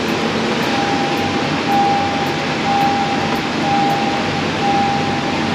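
A steady, loud rushing noise like a large fan, with a high electronic beep repeating about once a second from about a second in.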